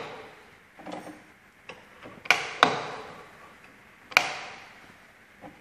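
Sharp metallic clacks from the feed-range sliding block on an Ajax AJRD55H radial drill's gearbox panel being shifted by hand: a couple of soft knocks, then two quick clacks about two seconds in and a third about four seconds in, each ringing briefly.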